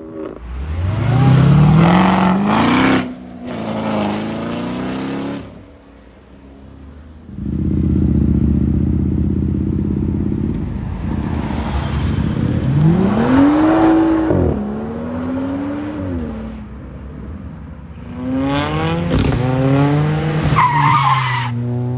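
Cars and motorbikes accelerating hard away one after another, each engine rising in pitch as it revs up through the gears, with short quieter gaps between passes.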